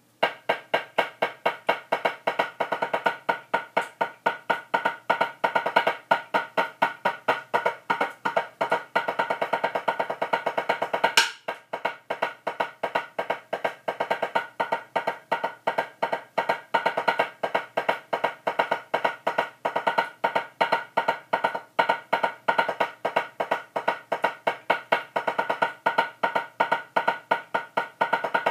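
Drumsticks striking a rubber drum practice pad in a fast, even stream of strokes, some louder than others as accents, playing a snare rudiment exercise. The strokes break off briefly about eleven seconds in, then resume.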